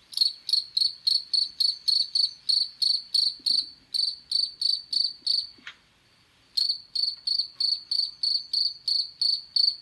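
Cricket chirping in an even, high-pitched rhythm of about three chirps a second, with a break of about a second midway before it resumes.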